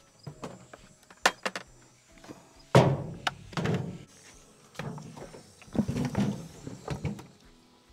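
Tomatoes tipped from a plastic bucket into a metal wash tub of water. There are a few sharp knocks of the bucket first, then a heavy thunk about three seconds in, followed by about a second of tumbling and splashing, and a second pour about six seconds in.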